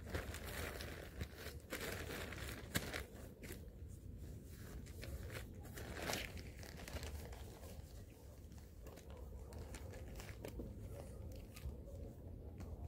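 Crinkling and crunching handling noises with scattered clicks, the sharpest about three seconds in, over a steady low rumble.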